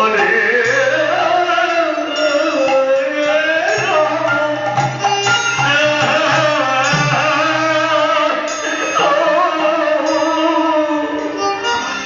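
Devotional naam kirtan: a lead voice singing a long, sliding melody over drum and instrument accompaniment.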